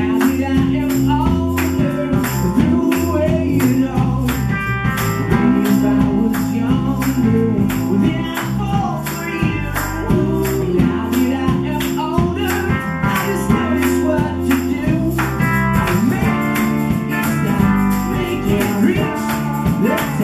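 Live rock band playing: acoustic and electric guitars over a drum kit, with hand percussion shaken in a steady beat of about three strokes a second.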